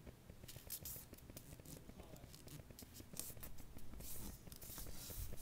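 A sheet of paper being folded and creased by hand: faint, irregular short rustles and scrapes as it is handled and pressed flat.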